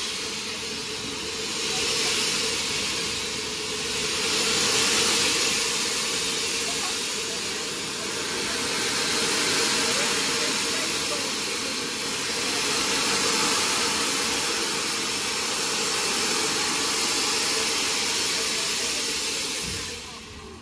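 Steam hissing steadily from LNER A3 Pacific 60103 Flying Scotsman, swelling and easing every few seconds, with a steady lower hum underneath.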